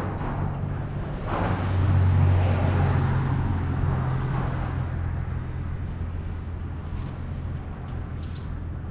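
A steady low mechanical hum from a motor or engine, growing louder about two seconds in and then slowly easing off, with a few faint clicks near the end.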